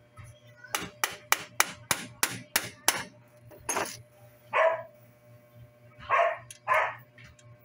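A quick run of about nine sharp clicks, roughly three a second, followed by a dog barking three times.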